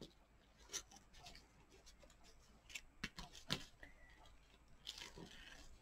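Faint rustling and small scattered ticks of ribbon and card being handled as fingers tie a small knot in two ribbons wrapped around a paper greeting card.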